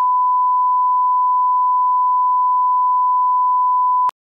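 A steady, unwavering 1 kHz reference tone: the test-signal beep that goes with colour bars. It cuts off suddenly with a click about four seconds in.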